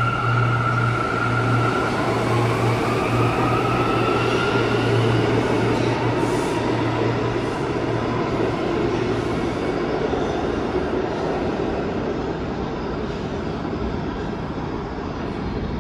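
New York City subway train running, with a steady rumble and an electric motor whine that rises in pitch from about two seconds in. A steady low hum fades out about halfway through.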